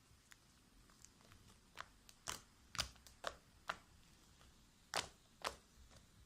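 Fluffy slime being kneaded and stretched by hand, giving off irregular sharp wet pops and clicks, several close together about two to four seconds in and two more around five seconds in.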